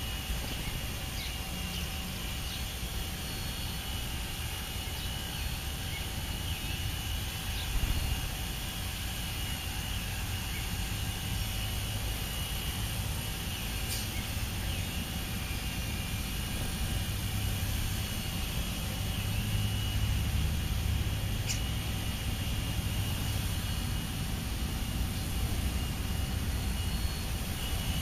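Steady low outdoor rumble that swells a little about two-thirds of the way through, with a faint steady high tone above it and a couple of brief sharp ticks.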